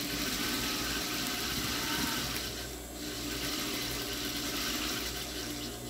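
Sewing machine running steadily as it stitches a seam along the edge of a fabric cushion cover, with a brief pause about three seconds in.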